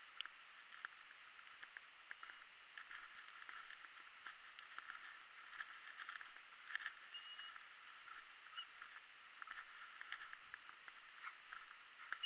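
Near silence: faint crackling rustle of dry grass and brush as a person walks through the field, with a few short, faint high beeps.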